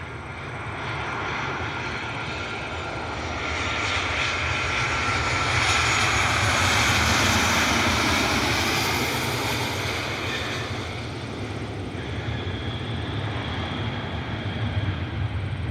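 Southwest Airlines Boeing 737 jet passing on its arrival approach: jet engine noise swells to a peak about halfway through and then fades, with a faint whine that drops slightly in pitch as it goes by.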